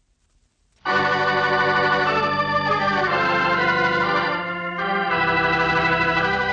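Organ music bridge: sustained organ chords come in abruptly about a second in after a brief near-silence, then shift to a new chord about halfway through.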